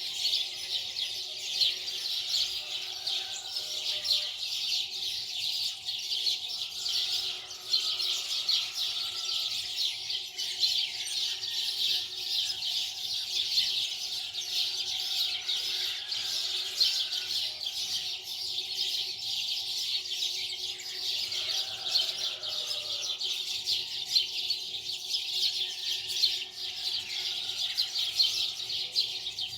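A dense, unbroken chorus of many small birds chirping rapidly.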